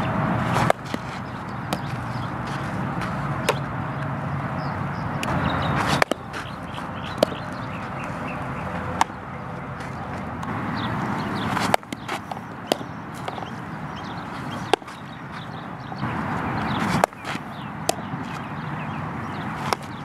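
Sharp single knocks of a softball being hit and caught in fielding drills, one every one to three seconds, over a steady outdoor noise.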